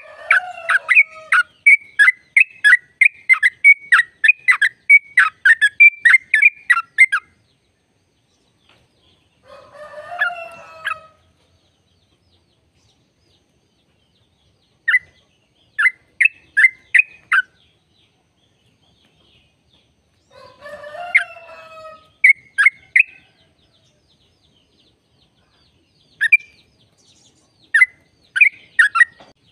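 Yellow-vented bulbul (trucukan) singing: a fast run of sharp, clipped notes at about three a second for the first seven seconds, then short groups of a few notes. A lower, bubbling phrase comes twice, about ten and twenty-one seconds in.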